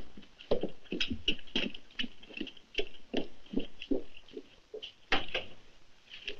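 A quick, irregular series of light knocks and clicks, several a second, with one sharper knock about five seconds in.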